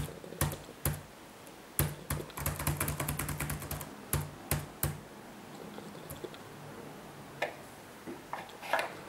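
Typing on a computer keyboard: a few single keystrokes, then a quick run of keystrokes, then three more single keys, with fainter scattered clicks near the end.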